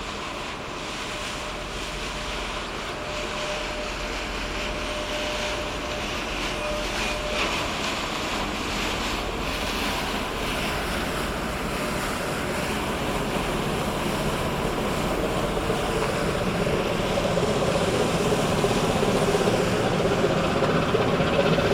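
Coastal cargo ship's engine running as the ship passes close, its steady low drone growing louder through the second half, over wind and lapping water.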